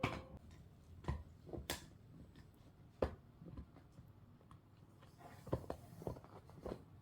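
Dogs handling toys and moving about: scattered light taps, clicks and knocks, several close together about five to six seconds in.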